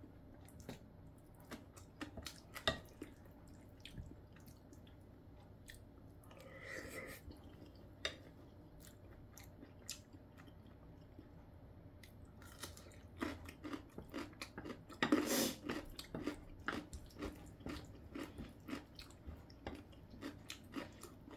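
Close-up chewing and crunching of radish kimchi and curry, with scattered sharp clicks of a spoon against a ceramic plate; the crunching comes thickest a little past halfway.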